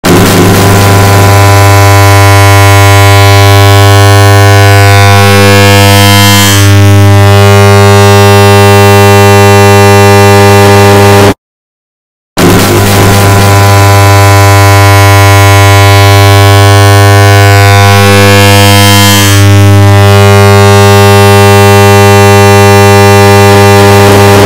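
Harsh, distorted steady buzzing drone with a strong low hum: the 'lemme smash please' voice clip repeated and sped up so many times that no words are left. It plays for about eleven seconds, cuts to a second of silence, then the same drone plays again.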